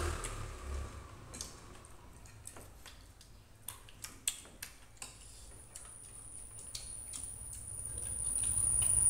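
Eating sounds: scattered small clicks and smacks of people eating rice by hand and scraping a spoon on a plate, with a few sharper clicks about four seconds in. A steady high-pitched whine joins about halfway through.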